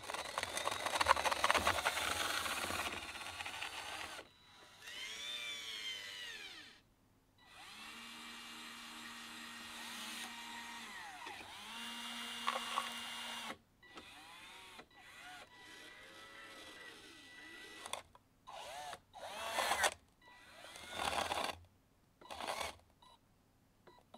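Small geared 12 V DC motors driving the lead-screw actuators of a 3D-printed RC excavator's boom, arm and bucket, whining in short runs that start and stop, their pitch rising and falling as they speed up and slow down. In the first few seconds there is a louder, noisier scraping, which fits the bucket digging through gravel.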